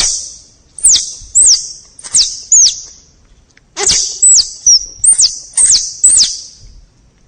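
Squirrel giving a series of short, high-pitched squeaky calls, each sliding sharply down in pitch, in two runs of about four and then six with a short pause between, over a faint hiss.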